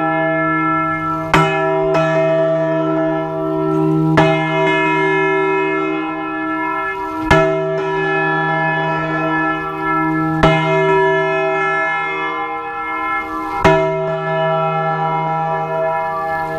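A large church bell swung full circle by hand (Spanish volteo ringing), its clapper striking five times, about every three seconds. Each stroke sets off a long, many-toned ringing with a deep hum that carries on into the next stroke.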